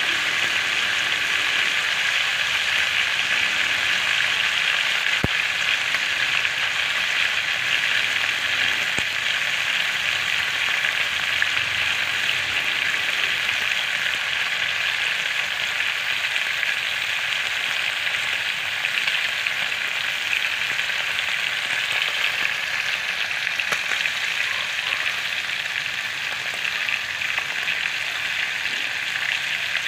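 Slices of pork liver sizzling in hot cooking oil in a pan: a steady, even frying hiss.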